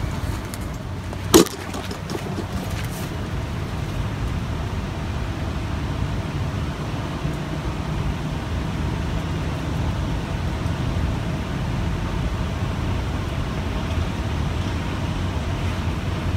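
Steady low rumble of distant road traffic, with one sharp click about a second and a half in.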